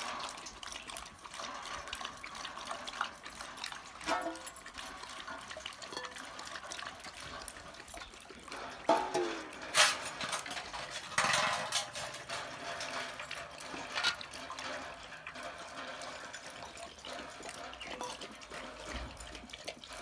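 Bone broth sloshing and splashing in a bowl as a dog drinks from it, with a few sharp knocks about ten and eleven seconds in.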